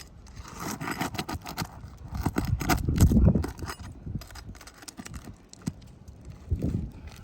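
Clicks and scraping of a metal tool against old asphalt shingles as roofing nails are worked out, with a heavy thump about three seconds in and another near the end.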